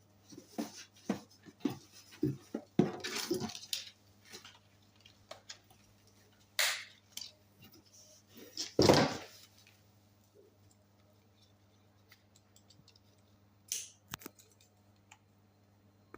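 Handling sounds of a riding hat and its packaging: scattered clicks and taps, a rustle about three seconds in and a louder bump near the middle, over a steady low electrical hum.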